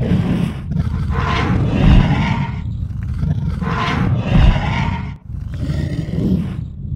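Animated Ankylosaurus sound effect from Google's AR 3D dinosaur: three deep roars over a steady low rumble, the last roar fainter.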